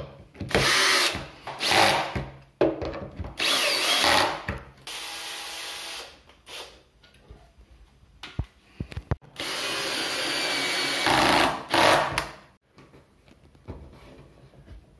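Cordless drill-driver driving screws into a wooden stool seat. It runs in about five short bursts over the first six seconds, then one longer run of about three seconds a little past the middle.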